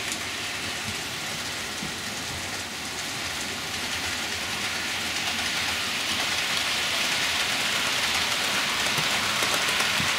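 Model trains running on the layout's track: a steady rushing rumble of wheels on rail that grows gradually louder.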